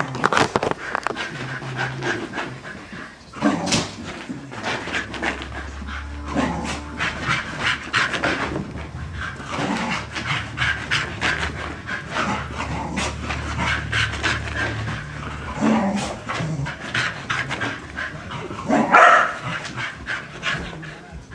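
Shetland sheepdog panting hard while charging about, with short barks and frequent sharp knocks from its scrambling. The loudest burst comes near the end.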